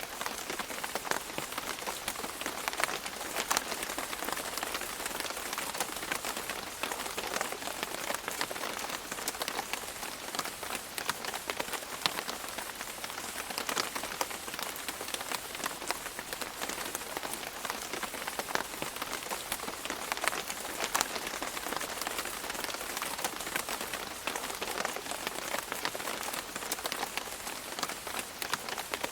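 Steady rain falling on a surface, a dense hiss with many individual drops pattering and ticking through it.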